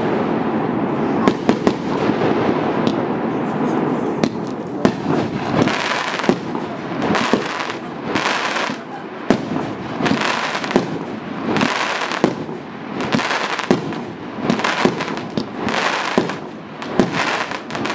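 A 38 mm, 100-shot consumer fireworks battery firing: sharp bangs of launches and shell bursts in quick succession, with crackling stars that come in surges about once a second in the second half.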